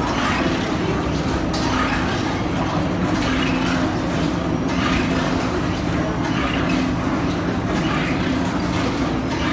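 Tea-factory machinery running steadily, including orthodox tea-leaf rolling machines turning: a constant mechanical hum with low droning tones.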